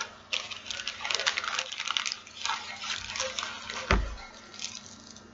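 Small plastic packets crinkling and rustling as they are handled, in quick crackles. One sharp thump about four seconds in.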